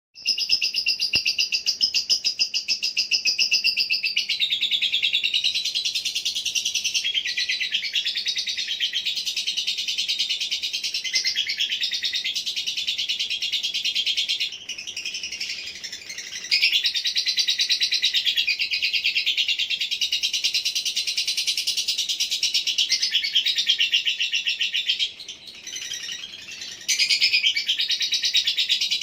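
Lovebird singing a long, rapid, high-pitched trilling chatter almost without a break. The song drops away briefly twice, about halfway through and again near the end.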